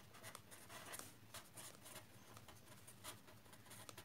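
Faint scratching of a pen writing by hand on lined notebook paper, in short irregular strokes.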